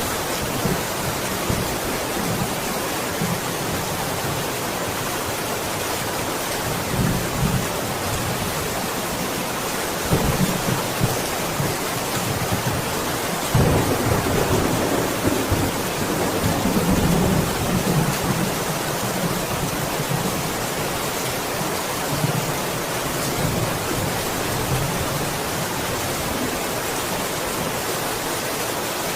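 Steady heavy rain with low thunder rumbling through it, swelling about ten seconds in and most strongly from about halfway through for several seconds.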